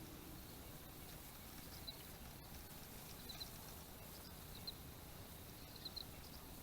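Faint riverside ambience: a low steady rumble of wind and water, with a small bird giving short high chirps, often doubled, every second or so.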